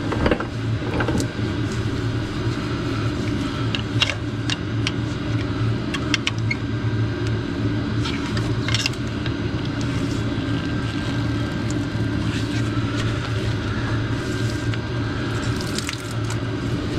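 Steady low hum of running shop equipment, with a few short metallic clicks and knocks of hand tools on the pump bracket and hose fittings.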